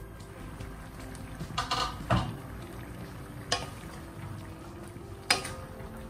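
A wooden spatula stirs seafood in sauce in a nonstick wok and knocks sharply against the pan four times, once briefly ringing, over a steady low background.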